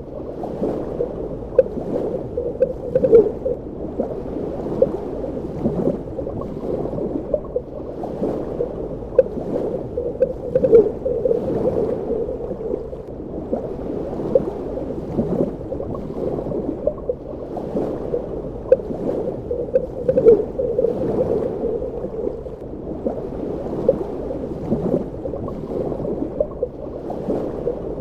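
Underwater water ambience: a steady, dull wash of water with many small, irregular bubbling gurgles and pops.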